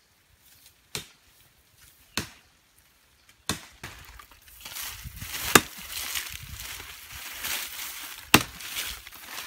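Machete chopping into the trunk of a small tree: five sharp, spaced blows, the loudest two about halfway through and near the end. From about halfway, dry grass and leaves rustle steadily between the blows.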